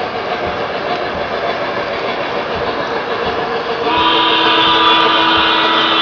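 O-gauge model refrigerator cars rumbling along the three-rail track with faint clicks over the rail joints. About four seconds in, a Legacy steam locomotive's electronic whistle sounds one long steady blast.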